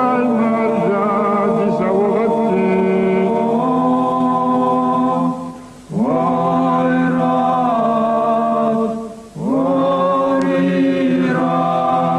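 Unaccompanied male Caucasian folk singing. A lead voice sings long melodic phrases over a steady low drone held by other men's voices. The singing breaks briefly about five and a half and nine seconds in, and each new phrase opens with an upward slide.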